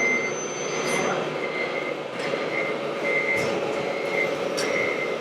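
Radio-controlled model truck's sound-module reversing beeper, a short beep at one steady pitch repeating roughly twice a second over a steady background hum.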